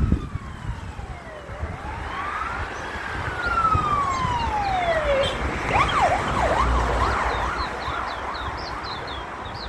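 Emergency vehicle siren: slow wails sliding down, up and down again, then about five and a half seconds in it switches to a fast up-and-down yelp that fades near the end.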